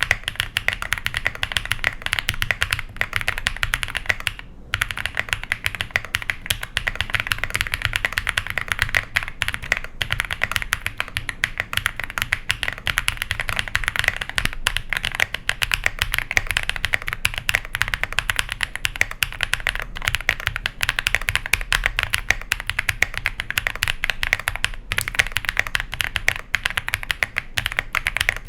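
Fast, continuous typing on an iris65 (jris65) custom mechanical keyboard with a polycarbonate plate, BSUN Kiki red and Cinnamoroll pink switches and GMK keycaps: a dense clatter of keystrokes, with a brief pause about four and a half seconds in.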